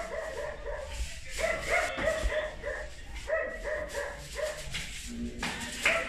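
A dog barking over and over, short barks in quick runs.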